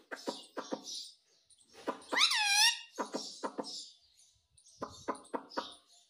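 Indian ringneck parakeet vocalising: short clipped syllables in quick runs of about four, repeated four times, with one loud ringing call about two seconds in that dips and rises in pitch. Fainter high chatter runs behind.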